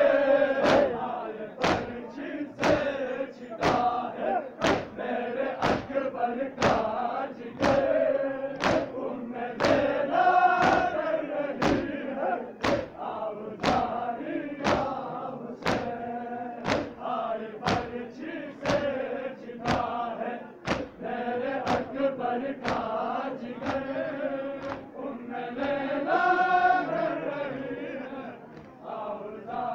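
A large crowd of men chanting a lament in unison, with a sharp slap about once a second as the whole crowd strikes their chests together in matam.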